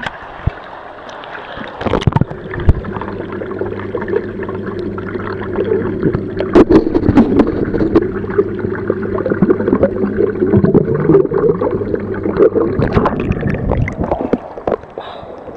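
A microphone submerged in a swimming pool: muffled underwater sound with a steady low hum, bubbling and scattered clicks. It splashes going under about two seconds in and splashes again as it breaks the surface near the end.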